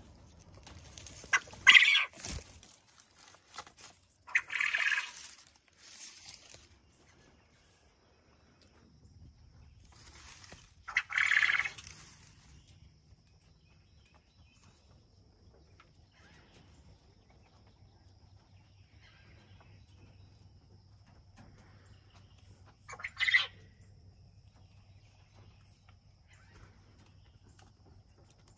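A quail in an aviary, disturbed on its nest as its eggs are collected: four short loud bursts of bird sound and rustling, about 2, 5, 11 and 23 seconds in, with quieter scattered sound between. A faint steady high tone runs from about 6 seconds on.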